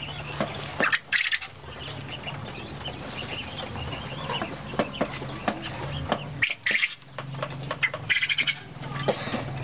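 Caged quail, disturbed by a hand reaching in among them, fluttering and chirping in three short bursts, with scattered clicks and rustling from the birds and the cage.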